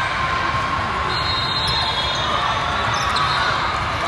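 Steady din of a volleyball hall: balls being hit and bouncing on the court floor, over a wash of many distant voices.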